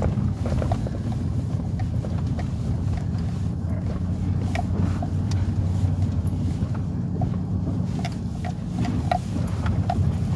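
Vehicle engine running steadily at low speed, with scattered light clicks and ticks over the drone.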